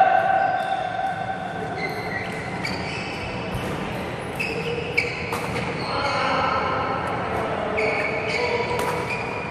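Badminton rally in a large hall: sharp cracks of rackets striking the shuttlecock, the loudest about five seconds in, with many short squeaks of sports shoes on the wooden court floor as the players move.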